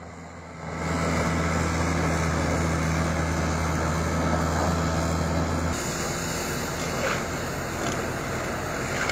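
Diesel engines of snow-clearing loaders running: a steady low engine hum from a skid-steer loader, which changes abruptly a little past halfway to a rougher, noisier engine sound as a wheel loader is seen close up.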